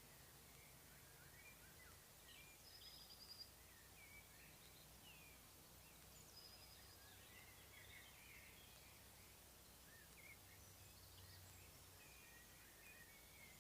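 Faint spring birdsong from several small birds: scattered chirps, short high trills and whistled notes at different pitches, overlapping throughout, over a faint low background hum.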